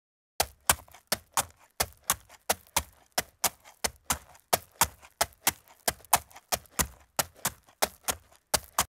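Horse hooves clip-clopping at a walk on a hard surface, a steady run of sharp knocks about three a second that stops abruptly.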